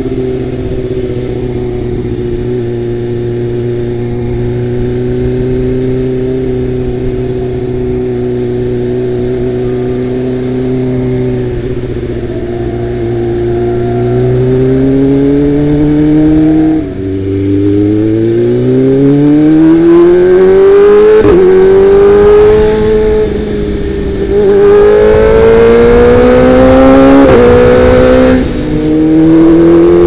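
Kawasaki Ninja ZX-25R's inline-four engine through a Best3 aftermarket exhaust, holding a steady note while cruising for the first half. From about halfway it pulls up through the gears: the revs climb, drop sharply at a few upshifts, and climb again.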